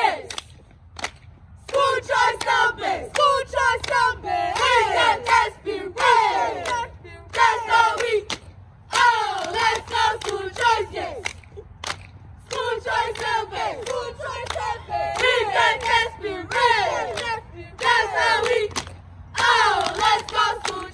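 A group of young, high-pitched voices chanting together in short, falling phrases with brief pauses between them, with a few sharp claps.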